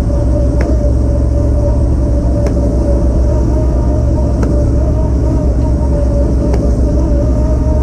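Fishing boat's engine and deck machinery running steadily, a loud even drone, with a faint click about every two seconds.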